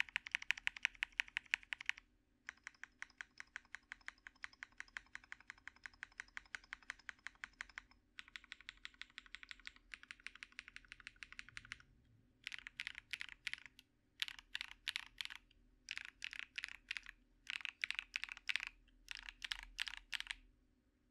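Fast typing on a QK80 tenkeyless mechanical keyboard built with stock OWLabs London Fog switches and OWLabs stabilizers, an aluminium plate, plate foam and a PE sheet, and GMK Dandy keycaps. Steady runs of keystrokes come for about the first twelve seconds, then short quick bursts with pauses between, and the typing stops just before the end.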